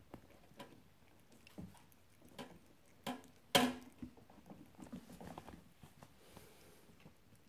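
A puppy scrabbling on a wooden plank floor while it chews at a bare toe: scattered light clicks and patters of its claws and paws. About three and a half seconds in comes one short, louder pitched sound, with a weaker one just before it.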